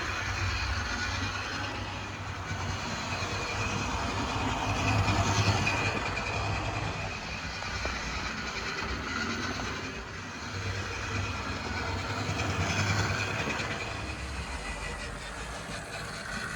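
OO gauge model locomotive running around a track, its small electric motor and gearing humming and the wheels clicking over the rails. It gets louder twice as the train comes close and fades as it moves away.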